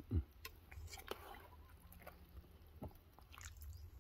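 A metal ladle serving frog curry from an aluminium pot into a bowl: a soft knock near the start, then a few scattered light clicks and scrapes of the ladle against the pot and bowl.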